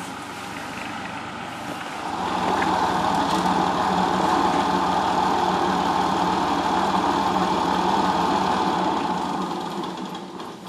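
Tractor engine running steadily, getting louder about two seconds in and fading away near the end.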